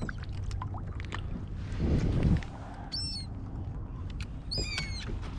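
Seagulls calling, two short calls that drop in pitch, about three seconds in and again near the end, over steady wind and water noise with a louder rush about two seconds in.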